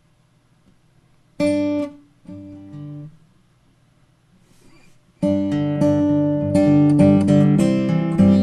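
Acoustic guitar: one loud strummed chord about a second and a half in, a softer chord held briefly about a second later, then steady rhythmic strumming starting about five seconds in.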